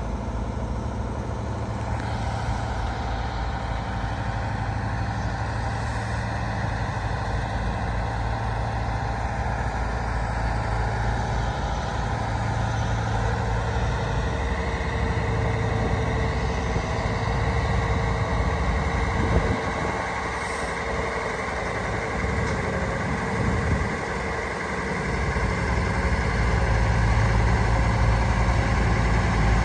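Scania 650S heavy-haul tractor's V8 diesel engine running at low speed as it pulls a wind turbine blade trailer, a steady low hum that grows louder near the end as it comes closer. A brief sharp sound about two-thirds of the way in.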